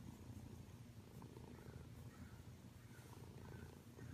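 Siamese cat purring faintly and steadily as it is stroked.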